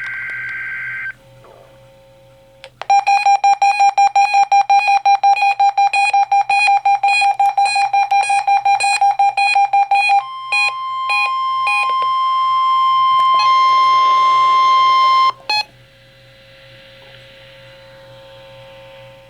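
NOAA Weather Radio receiver sounding the National Weather Service alarm test. It opens with the tail of a screeching two-tone digital header burst. About three seconds in comes rapid beeping at about four beeps a second, then a steady warning alarm tone for about five seconds that cuts off suddenly. Faint radio hiss follows.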